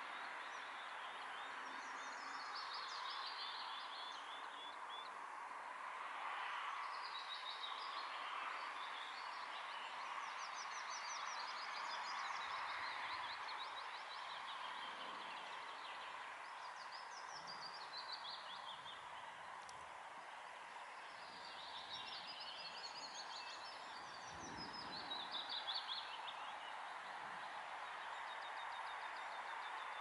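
Songbirds singing short, quick trilled phrases, one every few seconds, over a steady background rush. A few soft low thumps come in the middle and again near the end.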